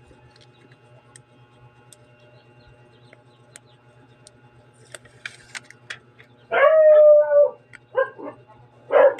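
A dog barking: one long call about two-thirds of the way in, then several short barks. Faint clicks and a low steady hum come before it.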